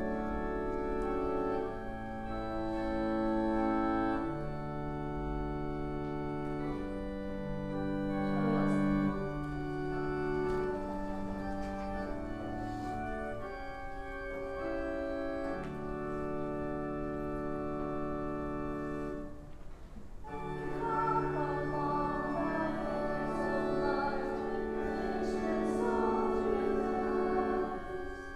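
Organ playing a hymn introduction in slow, held chords. After a short break about twenty seconds in, voices start singing the hymn along with the organ.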